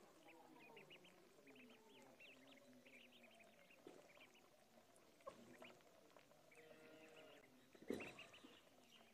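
A brood of ducklings peeping faintly and without pause, many short high peeps overlapping. One brief louder sound comes about eight seconds in.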